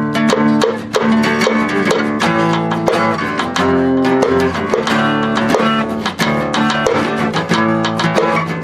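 Acoustic guitar strumming chords in the instrumental opening of a slow love ballad, played live by a small band.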